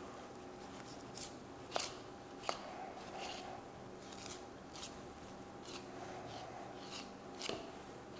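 Boning knife scraping and slicing along pork loin rib bones: a run of faint, irregular short scrapes with a few sharper ticks of the blade against bone.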